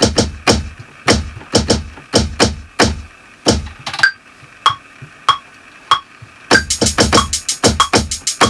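Hip-hop beat being built from sampled drums: kick and snare hits in a loose, spaced pattern. Short pitched blips join about four seconds in, and a fast hi-hat line comes in near the end, filling out the groove.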